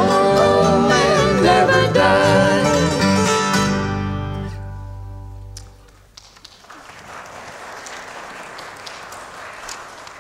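Bluegrass band of acoustic guitars and mandolin with voices singing the closing line of a hymn; the final chord rings and fades out about four to five seconds in. The congregation then applauds.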